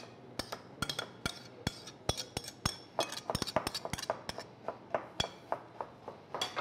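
A metal spoon clinking and scraping against a ceramic plate and a glass mixing bowl as garlic and ginger paste is scraped into the bowl: a quick, irregular series of light clinks, several a second.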